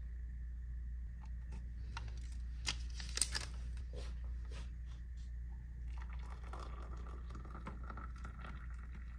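A paper tea-bag wrapper crinkled and torn open, with a few sharp clicks, then from about six seconds in hot water poured from a kettle into a mug over the tea bag, a steady rushing trickle.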